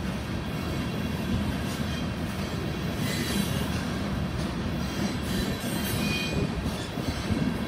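Freight train of oil tank cars rolling past: a steady rumble of steel wheels on the rails, with faint, thin wheel squeals about three seconds in and again after six seconds.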